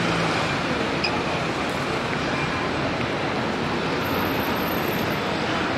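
Steady road traffic noise of a busy city street, with buses and cars: an even rushing din with no single vehicle standing out.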